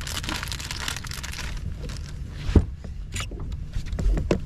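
A plastic bait bag crinkling and rustling as it is handled, then a single loud thump a little past halfway and a few lighter knocks near the end, over a steady low rumble.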